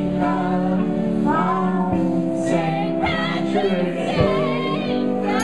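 Live band playing a folk-rock song: a woman sings lead with a man's voice alongside, over electric guitar and held chords, with a few low drum thumps.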